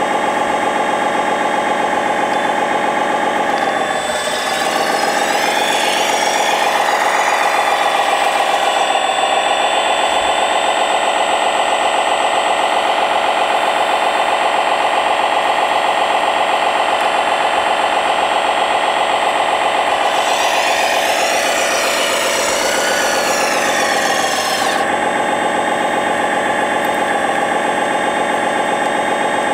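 Engine sound of a radio-controlled construction model idling, revving up about four seconds in and holding there, then dropping back to idle a little before the end.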